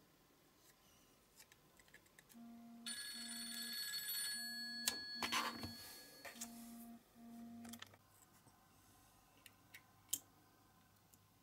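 A run of about six short, low electronic beeps, ringing or buzzing like a phone, with a louder rasping noise in the middle and scattered light clicks of knife work on small plastic and resin parts.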